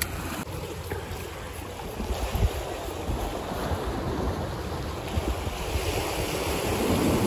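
Sea waves washing and breaking in rough conditions, with wind buffeting the microphone; the surf swells louder near the end.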